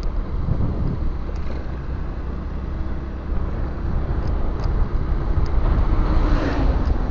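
Steady low rumble of wind on the microphone and road noise from a vehicle moving along a road, with a low hum that falls in pitch near the end.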